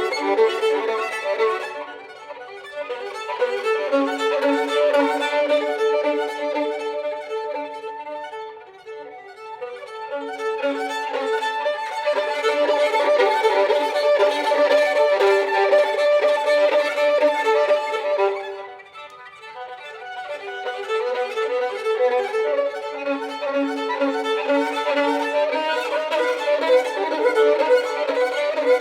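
Violin playing, the sound dropping back briefly about two, nine and nineteen seconds in before building again.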